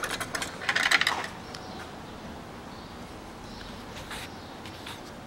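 Plastic clicks and a short rattling scrape in the first second or so as the engine's oil dipstick is unscrewed and pulled out, then only a faint steady background with one small click near four seconds.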